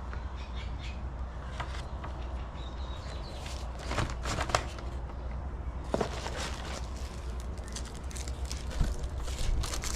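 Scattered clicks and rustling as the pieces of a paintless dent repair kit are handled, over a steady low hum.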